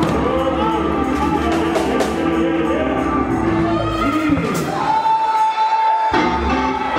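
Gospel church music with singing and instruments. The low end drops away about two-thirds of the way in, and a single high note is held for about two seconds near the end.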